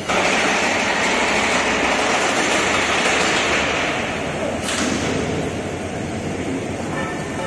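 Loud, steady rushing machinery noise in a diesel locomotive repair shed, starting suddenly and easing a little about halfway through.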